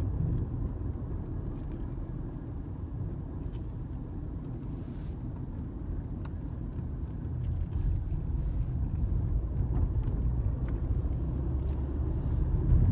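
Inside a moving car's cabin: the steady low rumble of the car driving on the road, growing louder in the second half.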